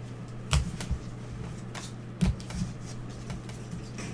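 Football trading cards and their packaging being handled: a few sharp clicks and taps scattered through, over a steady low electrical hum.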